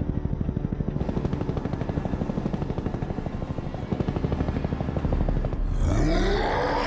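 Black Hawk-type military helicopter rotors beating in a fast, even rhythm as the helicopters fly past. About five and a half seconds in, the rotor beat gives way to a loud rising mechanical whine.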